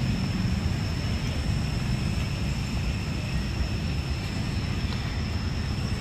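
Steady low rumble of city traffic, with a thin, steady high whine running over it.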